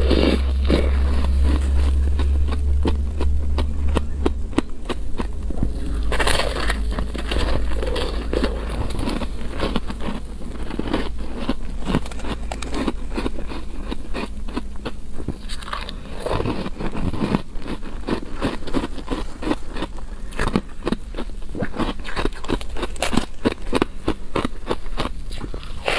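Close-miked biting and chewing of soft, powdery ice: dense, irregular crunching and crackling from one bite after another, under a steady low hum.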